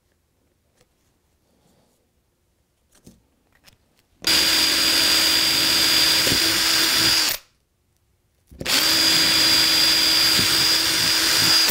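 Makita 18V cordless drill boring cable holes down through foam trackbed into the wooden baseboard: two steady runs of about three seconds each, about a second apart, after a few quiet seconds of light handling clicks.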